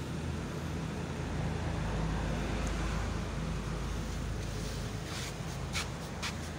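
Ford Expedition engine idling steadily, with a few short clicks and knocks near the end.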